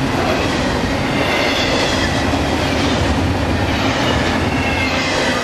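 Double-stack intermodal well cars of a freight train rolling past close by: a steady noise of steel wheels on the rails, with a faint high wheel squeal running through it.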